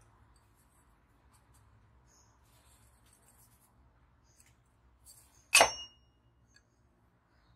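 A single sharp clank about five and a half seconds in, with a brief metallic ring after it, as a metal part or tool is knocked or set down. Faint small clicks and taps of handling come before it.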